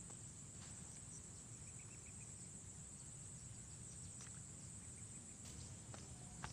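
Insects chirring steadily at a high pitch over a low rumble, with a few faint clicks in the second half.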